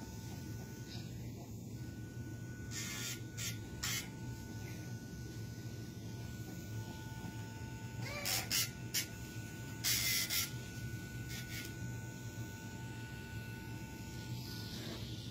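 Dremel rotary tool running with a steady whine, its spinning bit grinding down a puppy's nails in several short hissing bursts. The loudest bursts come about two-thirds of the way through.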